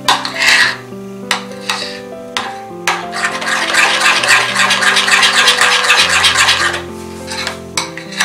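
Background music with slow, held notes that change step by step. Under it, a steel spoon stirs thick gram-flour batter in a glass bowl, with soft scraping and clinking against the glass.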